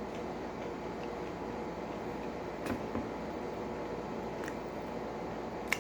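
Steady background hiss of a small room, with a few faint soft clicks.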